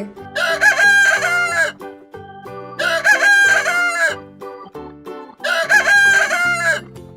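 A rooster crowing three times, each cock-a-doodle-doo lasting about a second and a half, with a second or so between crows.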